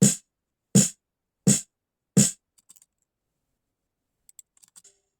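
Four evenly spaced snare drum hits, about three-quarters of a second apart, followed by a few faint clicks near the end. The snare is being checked for tuning, and the player judges that its top head still needs tightening.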